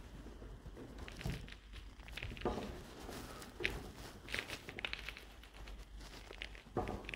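Faint footsteps crunching over debris, with scattered small scuffs and clicks.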